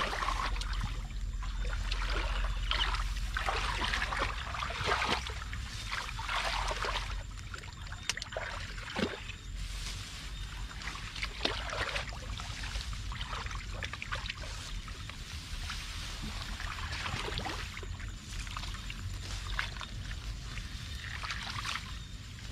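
Water in a shallow canal splashing and sloshing in irregular strokes, over a steady low rumble.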